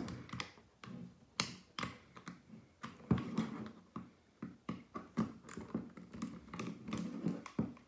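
Screwdriver with a size 2 hex bit on an extension turning out the screws inside a gel blaster's plastic pistol grip: irregular small clicks and taps of the tool working in the grip.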